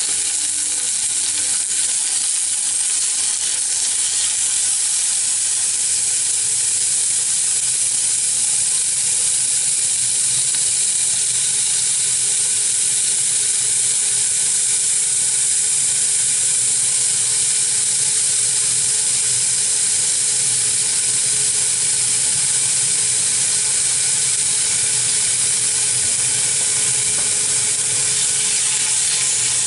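Sliced onions and carrots sizzling steadily as they fry in a stainless saucepan on an induction hob.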